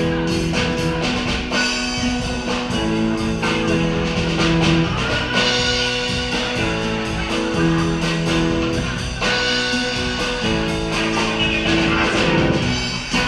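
A live band playing keyboard, acoustic guitar and drum kit: held chords over a steady drum beat.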